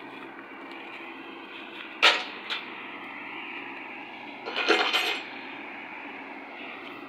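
Metal clanking over a steady engine idle: one sharp, loud clank about two seconds in, a lighter one just after, and a rattling clatter of metal near the middle.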